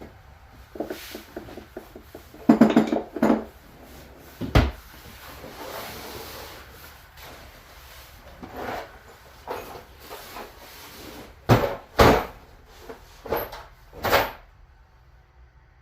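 Tools and metal parts being handled: irregular clatter, scraping and a series of sharp knocks, as when rummaging for a wrench and starting to unbolt a part of a lathe.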